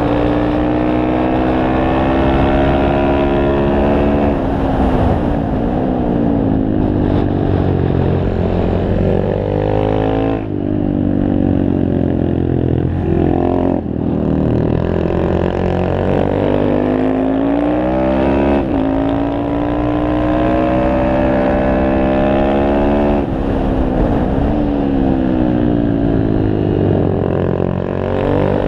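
Honda Grom's 125 cc single-cylinder four-stroke engine, heard from a camera on the bike, revving up and down around a track. Its pitch climbs under throttle, drops suddenly at gear changes (a few times), and falls away as it slows for the bends.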